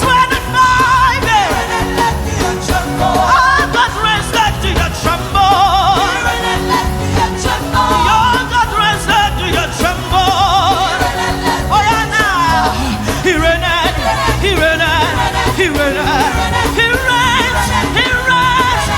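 Live contemporary gospel praise music: a singer with a wavering, ornamented voice over a band, with drums and bass keeping a steady beat.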